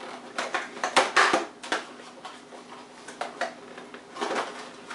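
Clear plastic retail headphone box being handled and opened, its plastic shell and card insert crinkling and clicking in short irregular bursts.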